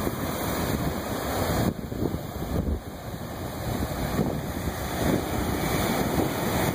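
Ocean surf breaking and foaming up the sand and around shore rocks, a steady wash, with wind buffeting the microphone in uneven low gusts.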